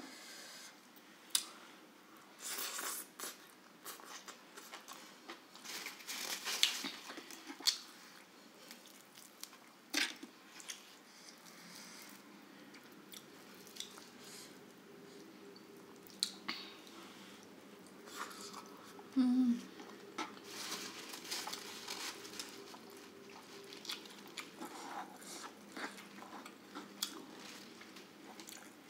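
A person chewing and biting into a meal of grilled chicken, rice and stir-fried water spinach eaten by hand, with irregular crunches and wet chewing. A brief low hum comes about two-thirds of the way through.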